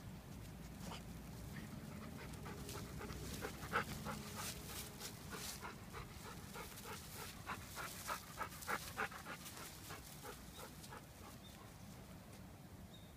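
A dog panting close to the microphone in quick, short, rhythmic breaths, with rustling of dry grass as it rolls and noses about. The breaths start about two and a half seconds in and fade out after about ten seconds.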